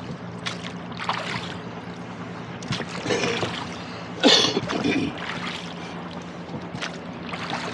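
Oars working a rowboat through lake water: splashing and dripping surges with the strokes, every second or two, the loudest about halfway through.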